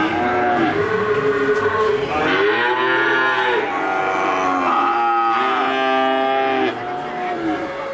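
Several calves bawling at once: long, overlapping moos that rise and fall in pitch.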